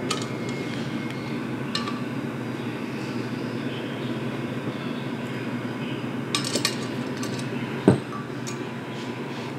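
Metal tools and bolted parts clinking and tapping during hand assembly of a minibike's handlebars and fork clamp. There are a few scattered clinks, a short cluster about two-thirds through and one louder knock near the end, over a steady low hum.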